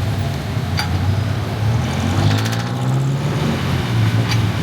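A motor vehicle's engine running close by; its pitch rises in the middle as it accelerates. There are a couple of sharp clicks and a brief rattle.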